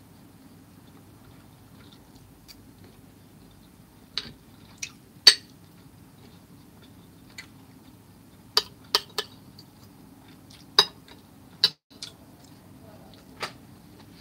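Metal spoon clinking against a dish while eating: about ten short, sharp clinks at uneven intervals, the loudest about five seconds in, over a faint steady low hum.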